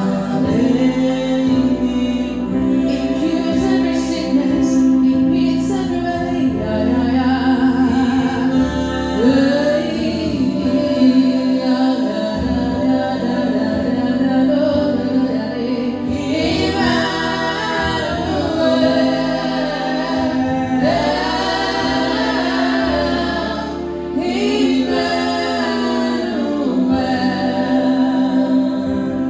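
Gospel song sung by voices in harmony, accompanied by a keyboard holding sustained chords; the singing grows fuller about halfway through.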